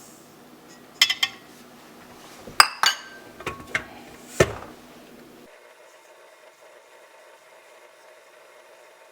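Kitchen utensils clinking against dishes as baking ingredients are measured and added: about seven sharp clinks in the first half, then only faint room hum.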